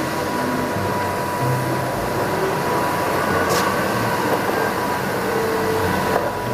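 Diesel engines of MAN concrete mixer trucks running as they drive slowly along a street, a steady mechanical drone of engine and traffic noise with a thin steady high tone through it.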